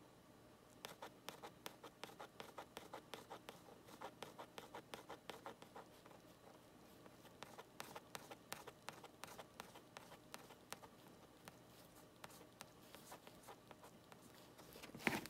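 Faint rapid ticking and rustling of a small sensor circuit board and its wire leads being shaken back and forth by hand, several clicks a second, starting about a second in; a louder knock near the end.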